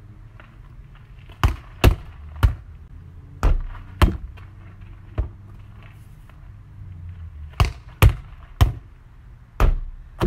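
A volleyball being hit repeatedly in solo passing and setting practice: about ten sharp slaps, some in quick pairs or threes about half a second apart with short gaps between groups, over a steady low rumble.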